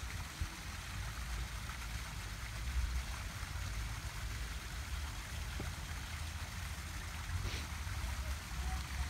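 Small rock-garden waterfall running steadily over stones, an even hiss of flowing water, over a low, uneven rumble.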